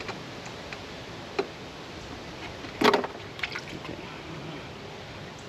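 Gasoline trickling from a disconnected fuel line at the riding mower's inline fuel filter, a faint steady hiss, with a few small clicks and one sharp knock about three seconds in.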